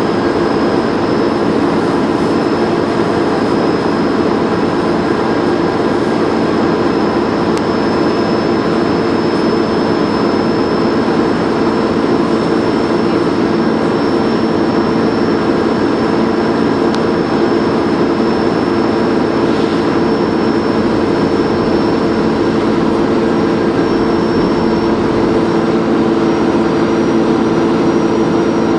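Dennis Trident 2 bus engine running steadily under way, with a thin high turbo whistle held over the engine noise that creeps slightly higher in pitch over the stretch.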